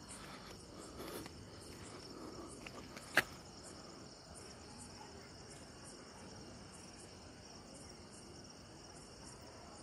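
Crickets chirping steadily at a high pitch, with one sharp click about three seconds in.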